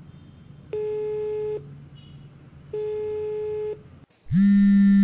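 A phone call going through: two steady one-second beeps of a telephone ringing tone, a couple of seconds apart. Near the end a mobile phone starts buzzing loudly for the incoming call.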